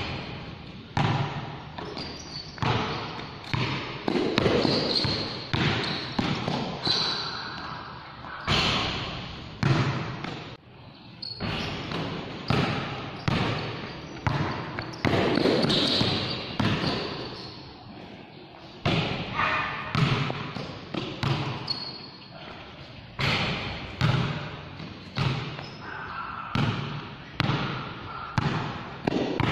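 Basketball dribbled on a concrete court, bouncing about once a second in an uneven rhythm, each bounce echoing under the big roof. A short high squeak sounds now and then.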